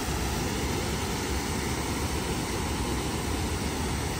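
Steady rush of river water pouring over a waterfall, an even noise that does not change.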